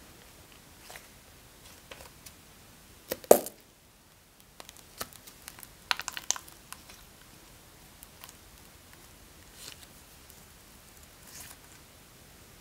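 Foam-filled squishy stress balls squeezed by hand, with soft squelching and crackling as white foam is pushed out of them into a glass dish of liquid. The loudest squish comes about three seconds in, with a run of smaller crackles around six seconds.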